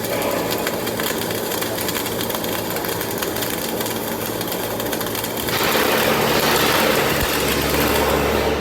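Electric arc welding: the arc crackling and hissing steadily, growing louder in the last few seconds with a low hum underneath.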